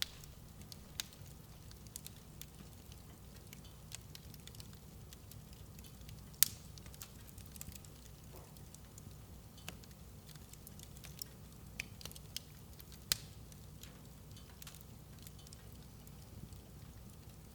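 Fire in a fireplace crackling, with irregular sharp pops over a faint low rumble. The loudest pop comes about six seconds in, and another strong one near thirteen seconds.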